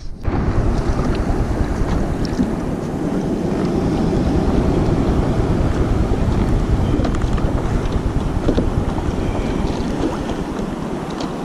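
Wind buffeting an action-camera microphone in a kayak on choppy sea: a loud, steady low rumble.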